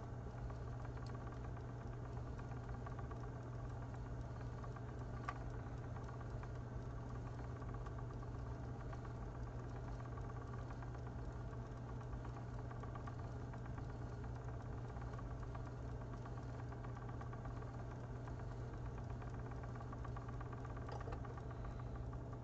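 Magpie Daedalus spinning wheel running at a steady speed: its drive and whirling flyer give an even mechanical hum, with one faint click about five seconds in.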